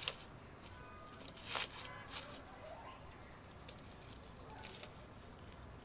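Hands working loose, crumbly soil in a black plastic pot: soft rustling and crumbling with scattered scrapes against the pot, the loudest about a second and a half in.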